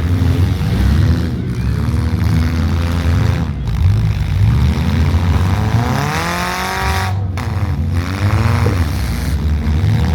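Engines of compact demolition-derby cars running and revving, with one engine revving up and dropping back about six seconds in.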